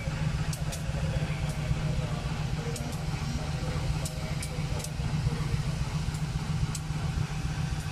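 Diesel-electric locomotive (KAI CC 203) idling at a standstill, a steady low engine hum with a few faint sharp ticks over it.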